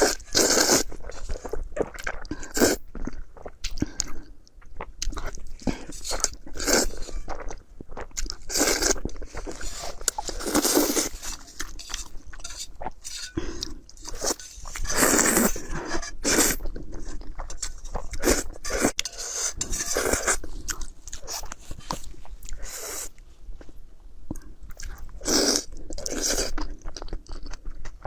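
Close-miked eating sounds from a person chewing and crunching food in irregular bites, with louder bursts every few seconds.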